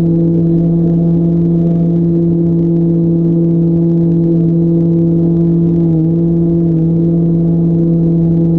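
Electric motor and propeller of a radio-controlled plane running at steady throttle, heard from the onboard camera: a loud, even hum with a slight waver about six seconds in, over rough low wind noise.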